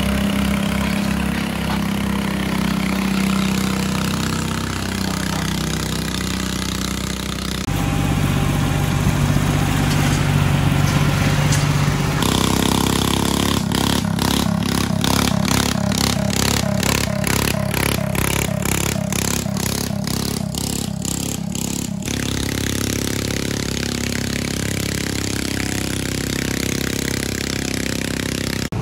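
Garden tractor engines running hard under load while pulling a weight-transfer sled, the engine note changing from one pull to the next. For several seconds in the middle the sound pulses evenly at about two beats a second.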